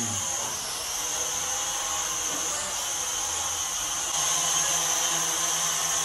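Small toy quadcopter drone hovering, its propellers and motors giving a steady high whirring hum that grows a little louder about four seconds in.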